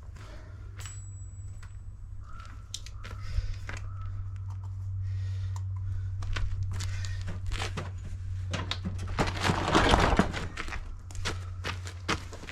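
Scattered knocks and clicks of hard objects being handled, over a steady low hum, with a louder rustling, scraping stretch about ten seconds in.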